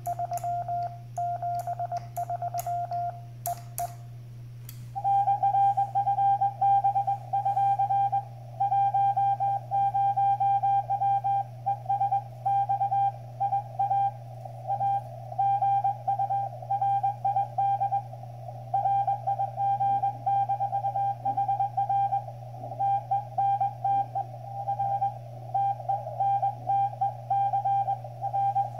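Morse code (CW) from a Xiegu X6100 HF transceiver. For the first four seconds the operator's own keyed sidetone sounds, with sharp clicks. From about five seconds in, an incoming Morse signal from another station is heard through the radio's small speaker as a louder keyed tone, over a steady low hum.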